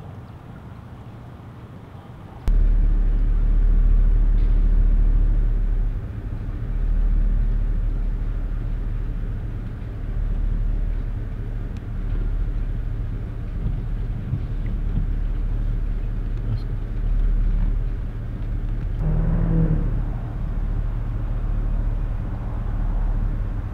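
An engine running with a steady low rumble that comes in suddenly about two and a half seconds in and holds on, swelling a little now and then.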